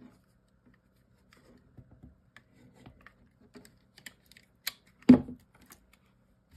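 Chipboard craft pieces being handled and pressed together on a table: scattered light clicks and taps, with one louder thump about five seconds in.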